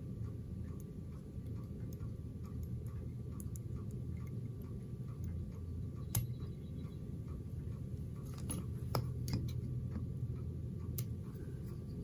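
Small clicks and taps from handling fly-tying tools, a half hitch tool and bobbin, while the thread is tied off on a fly. They come over a steady low hum and a faint, even ticking, with the clicks a little more frequent in the second half.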